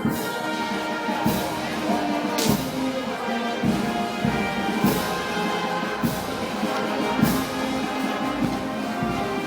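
Festival brass band playing, sustained brass chords with percussion strikes about every second and a bit.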